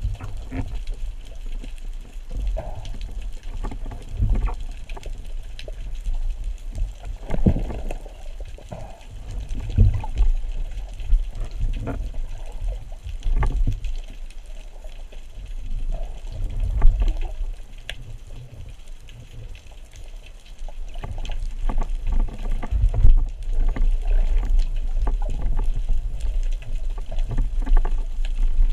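Muffled underwater water noise heard through a speargun-mounted camera's housing: a steady low rumble with irregular knocks and bumps as the gun and line are handled.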